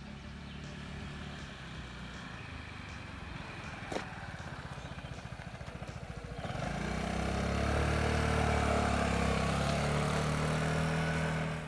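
Vespa scooter's single-cylinder engine running steadily at a distance as it approaches, with a sharp click about four seconds in. From about six and a half seconds a Vespa close by pulls away, its engine note rising and growing much louder.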